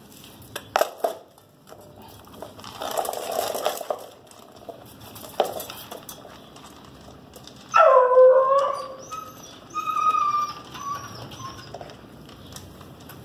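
Metal dog bowls knock down onto a concrete floor near the start as two pit bull puppies start eating. About eight seconds in, a puppy gives a loud whine that drops sharply in pitch and is then held, trailing off in higher whimpers over a few seconds.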